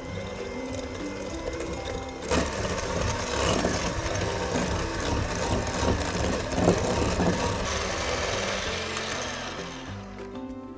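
Electric hand mixer running, its beaters whipping softened butter and sugar in a glass bowl until light and fluffy. The motor noise gets louder about two seconds in and eases off near the end.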